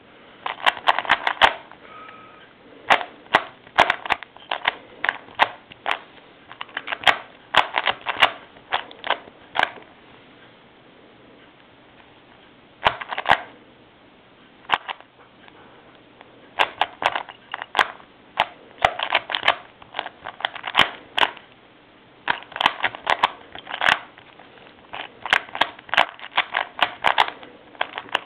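Plastic Rubik's Cube layers being turned by hand, clicking in quick runs of rapid turns broken by short pauses.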